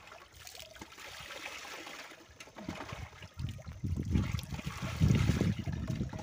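Water poured from a steel pot over a dog standing in a plastic tub, trickling and dripping into the tub. About three seconds in, a loud low rumble joins in and becomes the loudest sound.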